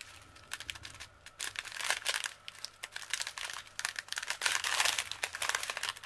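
Small clear plastic zip bag of pink diamond painting drills crinkling and crackling as it is turned and squeezed in the hands.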